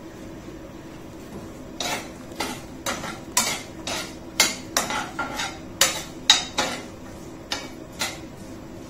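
A utensil stirring sautéing tagarninas (Spanish oyster thistle stems) in a frying pan, clacking and scraping against the pan about twice a second from about two seconds in, over a steady low hum.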